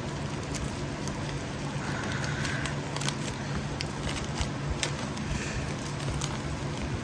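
Scattered light clicks and rustles of a small package and cable being handled, over a steady low hum.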